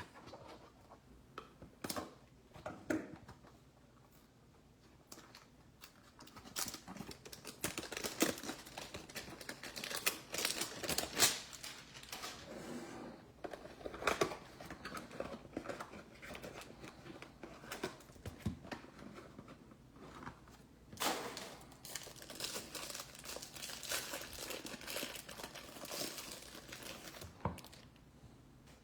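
Plastic wrapper of a trading-card hanger pack crinkling and tearing as it is opened and the cards are handled, a run of irregular small crackles and clicks.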